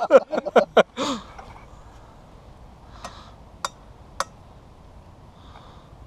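A burst of laughter dies away about a second in. After it comes a quiet, steady background with three short sharp ticks a little past the middle.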